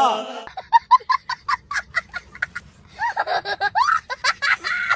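A child laughing hard: a run of quick, short bursts of laughter, then longer high laughs from about three seconds in.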